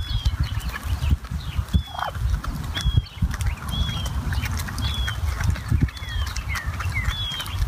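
Flock of wild turkeys feeding, with short high chirping calls about once a second over a fluttering low rumble.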